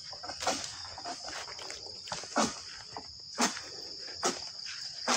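Insects chirring steadily in a high pitch, with footsteps crunching through undergrowth about once a second.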